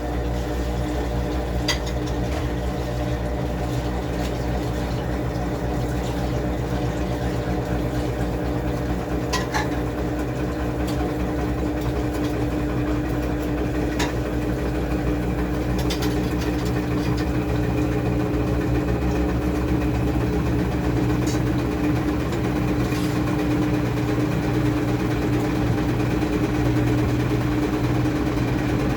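Washing machine running with a steady motor hum that grows slightly louder toward the end, with a few faint clicks.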